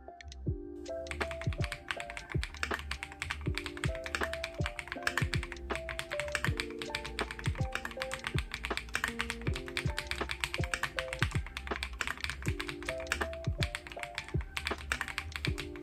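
Fast, continuous typing on a KiiBoom Phantom 81 gasket-mount mechanical keyboard with a clear acrylic case and transparent keycaps: a dense clatter of keystrokes that picks up about a second in, over background music.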